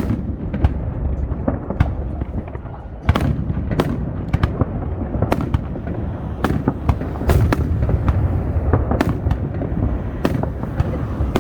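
Aerial fireworks bursting in an irregular string of sharp cracks and booms, often a couple a second, over a steady low rumble.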